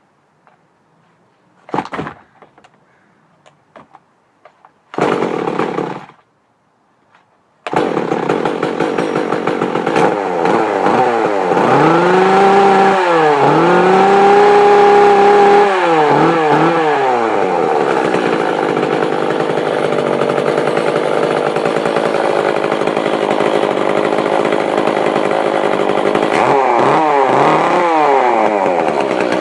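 Echo CS-341 two-stroke chainsaw being started: two short bursts, then about eight seconds in the engine catches and keeps running. It is revved up and held high twice between about twelve and fifteen seconds, then drops back, and is revved again near the end.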